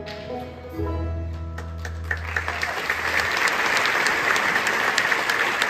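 A bluegrass band plays its final chord with guitar and a held bass note, and the audience breaks into applause about two seconds in. The applause keeps going as the music fades out.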